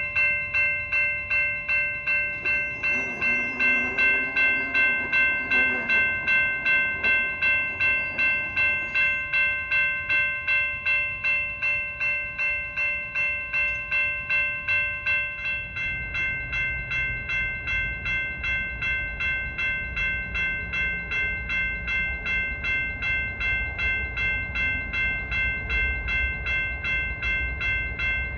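Railroad crossing warning bell ringing in an even rhythm of about two strikes a second: the crossing signals are activated for an oncoming train. A little past halfway a low rumble joins in underneath as a train approaches.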